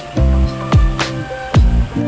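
Background music with a steady beat: sustained bass and plucked-string notes under a regular percussion hit about twice a second.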